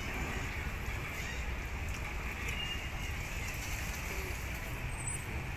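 Ferry-harbour ambience: a steady low rumble with an even hiss of water over it.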